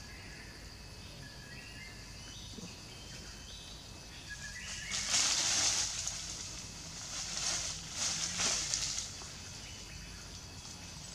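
Outdoor ambience with a bird calling a series of short whistled notes that step up and down in pitch, then two louder bursts of hissing noise in the middle.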